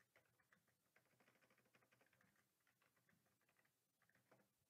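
Near silence with faint, quick computer keyboard keystrokes: a run of light clicks typing a search.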